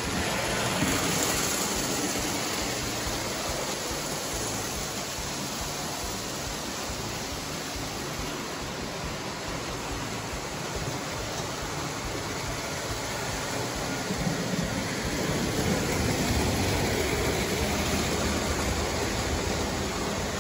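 Lionel 1666 Prairie O-gauge model steam locomotive running on three-rail tubular track: a steady rolling rumble of metal wheels on steel rails with the electric motor's hum, growing a little louder about two-thirds of the way through as the trains come nearer. The locomotive is freshly serviced and running smoothly.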